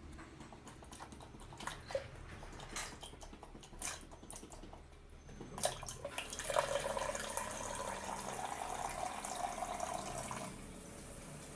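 A few light clicks and knocks, then water pouring from the Brio water dispenser into a container for about four seconds, stopping abruptly.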